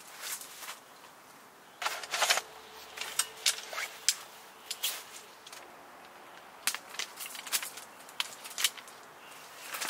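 Shock-corded metal poles of a folding camp table clacking as the frame is unfolded and fitted together: a run of sharp, irregularly spaced clicks, bunched about two seconds in and again around three to four seconds.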